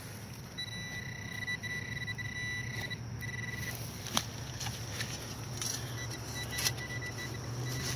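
Metal detector signal tone sounding in broken stretches over a hole being dug, with a few sharp knocks of digging near the middle.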